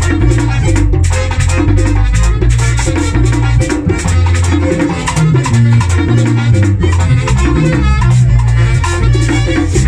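Live típico band playing a fast, steady groove: button accordion over a tambora drum and congas, with saxophone and bright rattling percussion.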